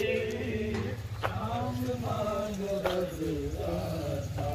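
A group of men chanting a Muharram nauha (lamentation) in unison, with sharp chest-beating (matam) slaps about every second and a half.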